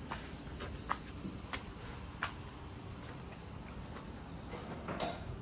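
Insects chirring steadily at a high pitch, with a few light clicks or footsteps scattered through.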